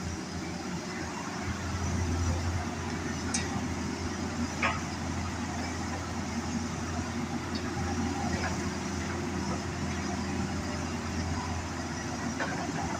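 Hitachi excavator's diesel engine running steadily, getting a little louder about a second and a half in, with a few short clicks and knocks.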